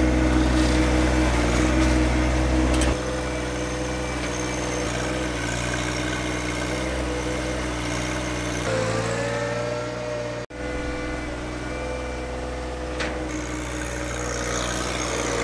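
John Deere 1025R compact tractor's three-cylinder diesel engine running steadily while the front-end loader works. It is louder for the first few seconds, its note shifts about nine seconds in, and there is a brief break about two-thirds of the way through.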